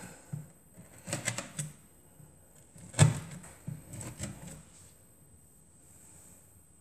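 Kitchen knife pressed down through a slab of almond brittle on parchment paper over a wooden board: scattered crackling clicks in short clusters, the loudest a sharp knock about three seconds in.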